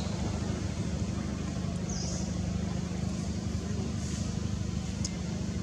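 Steady low mechanical drone in the background, with a few brief high chirps about two seconds in and again near the end.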